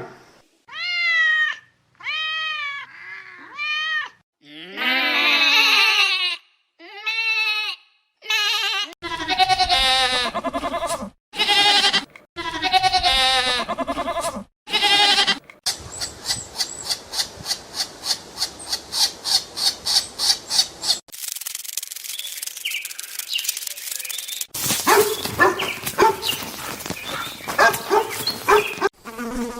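A string of different animal calls, one clip after another, with goat bleats among them: quavering, wavering-pitch calls in the middle, followed by a fast, even run of pulses.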